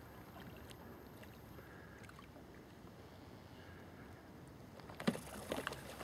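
Faint lapping water and breeze, then about five seconds in a quick run of splashes and knocks against the hull of a plastic sit-on-top kayak as a thornback ray is taken hold of at the surface beside it.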